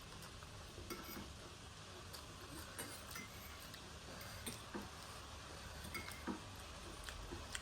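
Faint eating sounds at a meal: about ten scattered light clicks and clinks of utensils against dishes, at irregular intervals.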